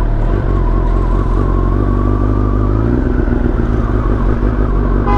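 Kawasaki Ninja ZX-10R's inline-four engine running smoothly at low revs as the bike pulls away slowly, its note shifting slightly about three seconds in.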